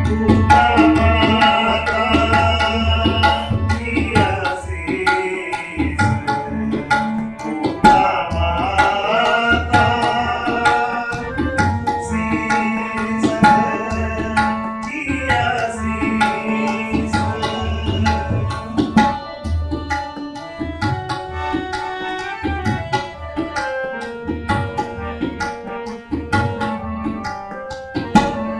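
Sikh devotional kirtan music: a tabla is played in a continuous rhythm with deep bass-drum strokes under the held chords of a harmonium. A voice sings in long phrases through the first part, with the accompaniment thinning toward the end.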